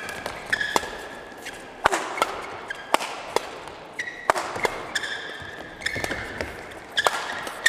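Badminton doubles rally: sharp knocks of rackets hitting the shuttlecock in an irregular exchange, with short high squeaks of court shoes on the mat between shots.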